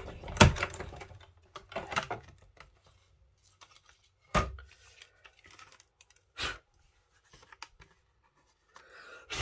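Hand-cranked die-cutting machine being wound back and its acrylic Spellbinders cutting plates and card handled: separate knocks and clicks of plastic, with light rustling between them. The loudest knocks come just after the start and about four and a half seconds in, with another at about six and a half seconds.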